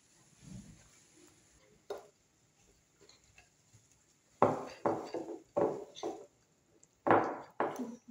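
A metal spoon knocking and scraping against a ceramic plate while stirring a thick sauce, in a series of about six short, sharp strokes in the second half, after a single light knock about two seconds in.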